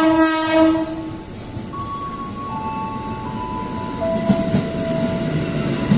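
KRL Commuter Line electric train arriving at a platform: its horn sounds and cuts off about a second in. Then comes the rumble of the train rolling in, with steady whining tones that step lower in pitch as it slows.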